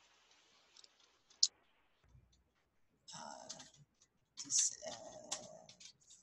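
Computer keyboard clicking as a word is typed: a single click in the first second and a half, then a short run of quick keystrokes about three seconds in, and another run near the end.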